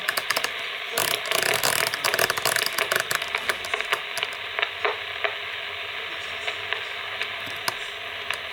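Realistic TRC-57 CB radio receiver giving a steady hiss of static from its speaker, with many sharp clicks and crackles over it.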